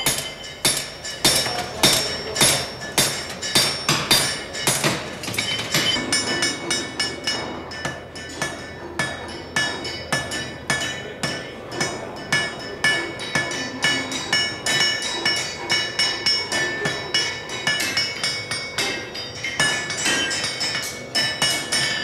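Blacksmith's hammer striking a red-hot horseshoe on an anvil while hand-forging it from flat bar stock. Steady blows about two to three a second, each with a metallic ring.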